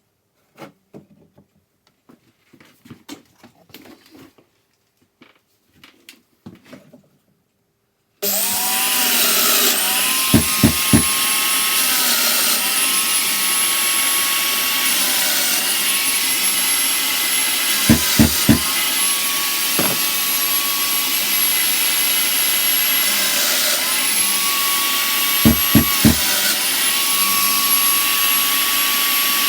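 Faint handling of wood at first. Then a stationary woodworking machine with its dust extractor runs steadily, its motor pitch sagging three times as oak stock is fed through under load, each time with a short burst of three thumps.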